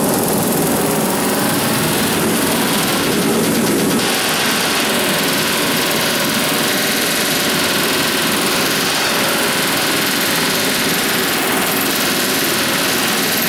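Pneumatic riveting hammer driving rivets into a riveted ship's steel hull plate: a loud, continuous rapid-fire hammering that holds steady throughout.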